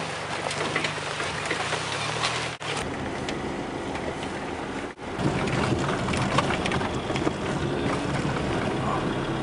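Vehicle engine hum and road noise in three stretches, cut off abruptly about two and a half and five seconds in. The last stretch, a vehicle driving a rough dirt track, is the loudest.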